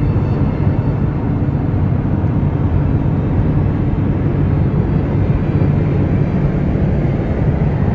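Steady low road and engine noise of a 2007 Dodge Ram 3500 pickup with turbo Cummins diesel cruising at highway speed.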